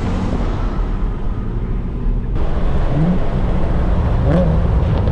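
Car engine and road noise heard from inside a moving car. In the second half the engine's pitch sweeps up briefly several times as it accelerates.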